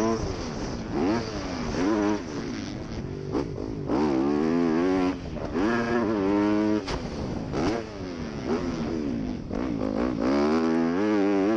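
Motocross bike engine revving up and dropping back over and over as the rider opens and chops the throttle through the jumps, heard close up from a camera mounted on the bike.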